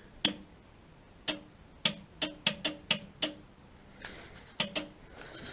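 Nitrous kit solenoids clicking open and shut about a dozen times in quick, uneven succession as the switch is hit, each click with a short buzz.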